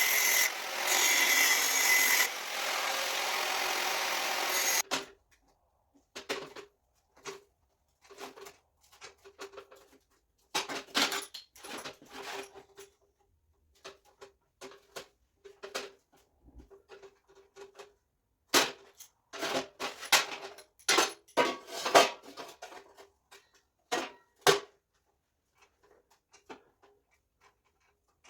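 A power tool cuts a relief cut into 14-gauge sheet steel for about five seconds and stops abruptly. Then come scattered metallic knocks and clanks with a short ring as the steel sheet is handled and bent.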